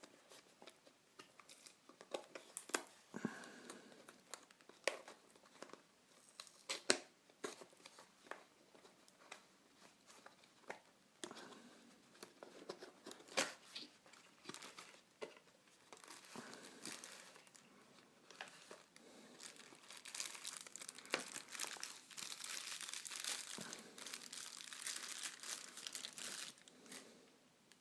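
Phone-box packaging being opened and handled: scattered crinkles, clicks and tearing. A denser stretch of continuous crinkling starts about 20 seconds in and lasts several seconds.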